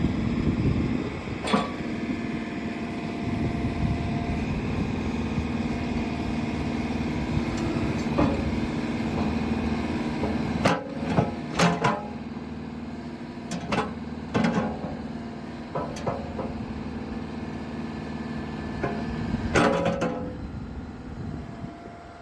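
JCB 3CX backhoe loader's diesel engine running steadily, with a series of sharp clanks: one early, a cluster in the middle and a loud pair near the end.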